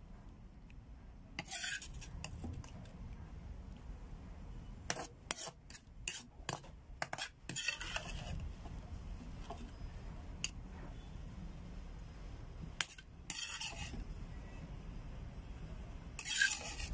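Metal serving spoon scraping and clinking against a ceramic plate and a pan as cooked squash is spooned out, in short bursts: a scrape about a second and a half in, a quick run of clinks between about five and eight seconds, and more scrapes near thirteen and sixteen seconds. A low steady hum runs underneath.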